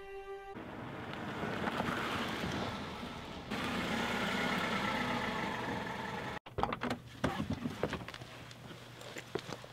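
A car's engine running. After a break, the car door clicks open with a few knocks as someone climbs out, over a low steady engine hum.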